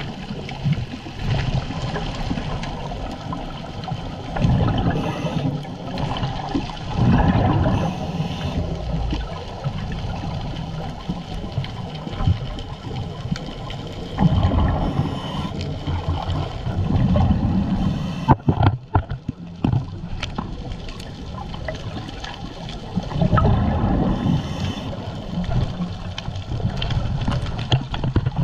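Underwater scuba audio: exhaled regulator bubbles gurgle and rush past the camera housing in a louder surge every few seconds, over a constant watery hiss. A few sharp clicks come about two-thirds of the way through.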